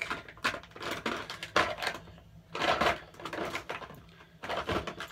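Hands rummaging among small hard objects, such as hair clips, giving irregular clicks, clatters and rustling, loudest about a second and a half in and again near the middle.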